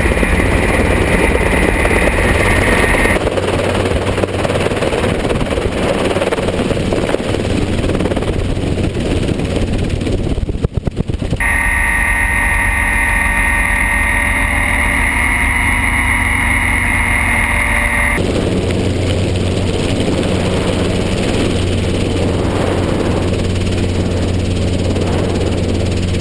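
Helicopter in flight: steady engine and rotor noise, with a high steady whine during two stretches.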